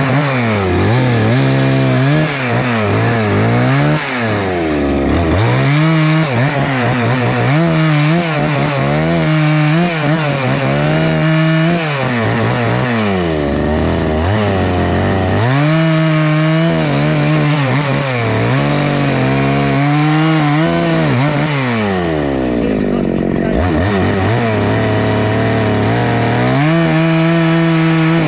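Husqvarna 288XP two-stroke chainsaw revving up and down again and again, with stretches held at full throttle while cutting into wood, and a brief drop to idle a little before the end.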